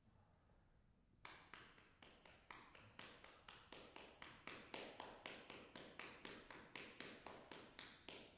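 Sparse hand clapping in an even beat of about three to four claps a second, starting about a second in, each clap ringing briefly in the hall.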